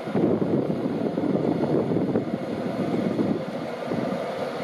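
Steady rumbling noise of an LNER InterCity 225 train standing at the platform, with wind buffeting the microphone.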